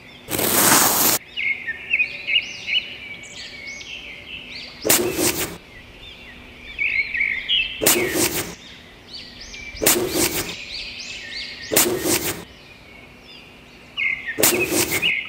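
Miniature trowel scraping and scooping damp sand in five short strokes, most about two seconds apart, over continual chirping birdsong.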